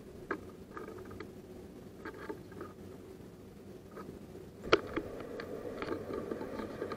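Small birds' feet and beaks tapping and clicking on a wooden bird feeder: scattered light ticks, then one sharp knock about two-thirds through as a tit lands, over a steady low background hum.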